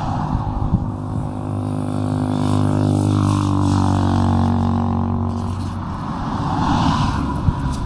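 A vehicle engine droning low and steadily, growing stronger toward the middle and fading away after about six seconds.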